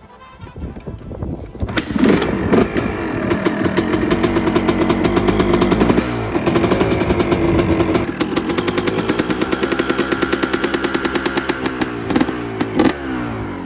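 2004 Honda CR250R's single-cylinder two-stroke engine starting up about two seconds in and blipped with a couple of quick revs. It then runs steadily at idle and is blipped twice more near the end.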